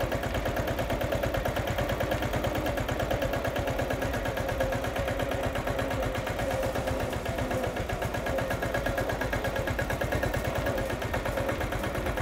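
Engine of a small 10.5 HP Shujaa tractor running steadily at a constant speed, with a quick, even pulsing beat.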